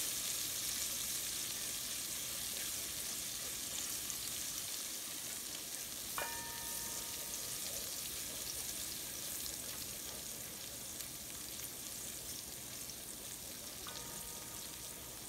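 Minced garlic sizzling in hot oil in a stainless steel pan, stirred with a wooden spoon: a steady frying hiss that slowly fades as the garlic begins to turn golden. Two short ringing tones cut in, about six and fourteen seconds in.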